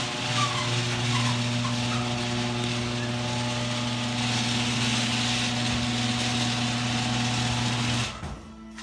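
Electric garage door opener running as the door moves up: a steady motor hum with a noisy spread above it, cutting off abruptly about eight seconds in when the door reaches its stop.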